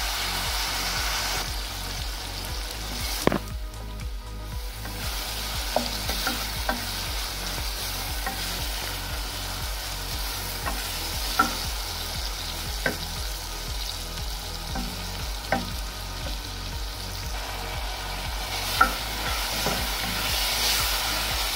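Sliced onions sizzling in hot oil in an aluminium pot, stirred with a wooden spoon, with a few sharp knocks of the spoon against the pot.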